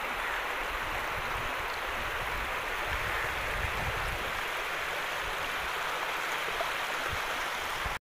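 Steady rushing of muddy floodwater flowing across fields, with scattered low rumbles; the sound cuts off suddenly near the end.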